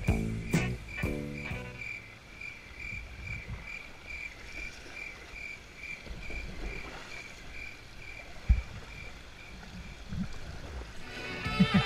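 Creek water rushing past a kayak, with a frog's high-pitched call repeated steadily about two and a half times a second through most of the stretch. There is one low thump about eight and a half seconds in. Background music fades out at the start and returns near the end.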